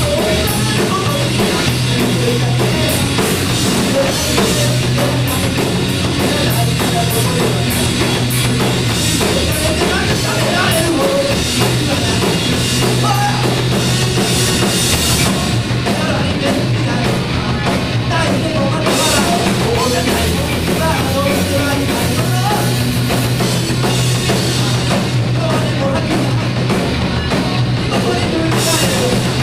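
Rock band playing loudly on a drum kit and guitars, a steady full-band passage.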